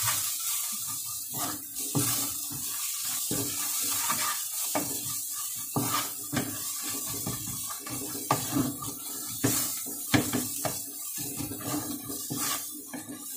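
Onion masala with ground spices sizzling in oil in a nonstick pan while a wooden spatula stirs it, scraping and knocking against the pan in irregular strokes. This is the masala being sautéed.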